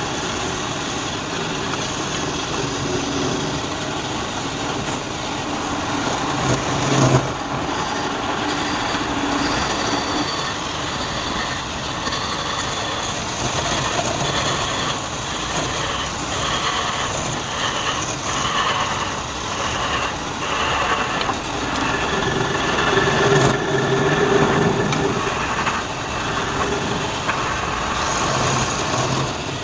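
Wood lathe running steadily with a turning tool working the spinning wood, one sharp knock about seven seconds in.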